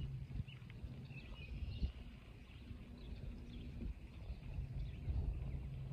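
Outdoor background noise: faint bird chirps here and there over a low, steady rumble.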